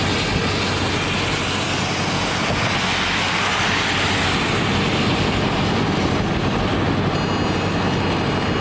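Steady rush of road and wind noise inside a moving car. The hiss swells about three to four seconds in as another vehicle passes close alongside. Faint steady high tones come in near the end.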